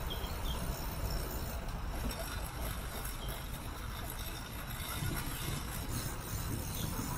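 Steady street ambience from a bicycle rolling along a roadside cycle path: a low rumble under an even hiss, with road traffic alongside.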